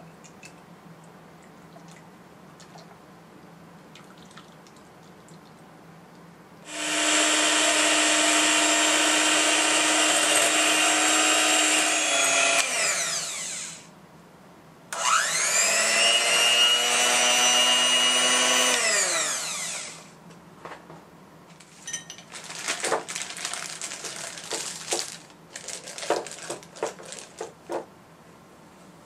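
Electric hand mixer whipping cream in a glass bowl, run twice for about six and five seconds, its motor whine falling in pitch as it winds down each time. Afterwards a plastic piping bag crinkles as it is handled.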